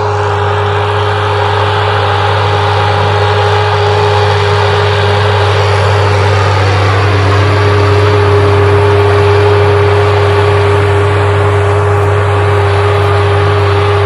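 Case IH Puma 140 tractor's diesel engine running steadily under load as it pulls a disc harrow, a constant-pitched hum that swells slightly toward the middle as the tractor draws nearer.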